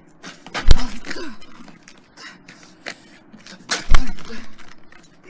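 Two heavy kick impacts on a person lying on the ground, about three seconds apart, each followed by a short pained groan.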